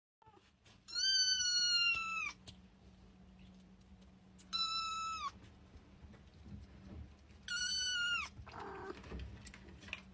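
A kitten mewing three times, high and thin, each mew a second or less with pauses of a couple of seconds between.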